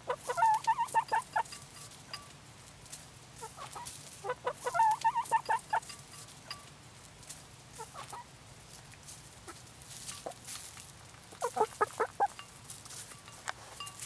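Domestic hens clucking in three short bursts of quick calls, at the start, about four and a half seconds in, and again near the end, with faint scattered ticks of beaks pecking at a dish of oatmeal.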